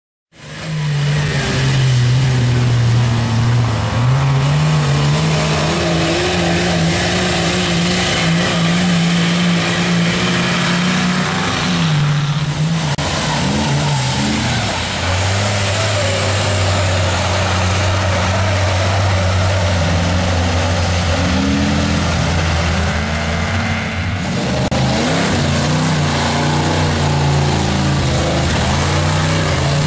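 Lifted pickup mud trucks running hard at high revs as they plow through a mud pit, the engine note holding and shifting with the throttle. The sound changes abruptly twice as one truck's run gives way to another's.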